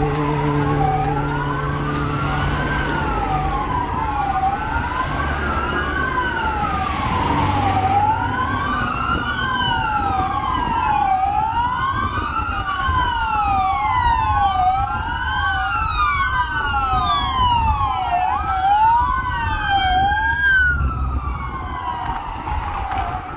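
Several police sirens wailing at once, their rising and falling tones overlapping, with more sirens joining about ten seconds in, over the rumble of passing cars.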